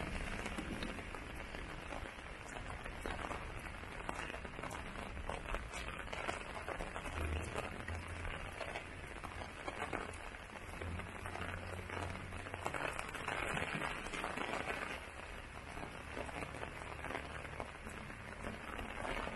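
Heavy rain falling, a dense, even patter of drops that swells and eases a little.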